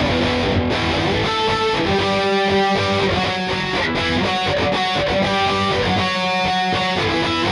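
Schecter C1 Elite electric guitar played through a distorted tone with a little reverb: picked single-note lines and chords, with held notes and some bends.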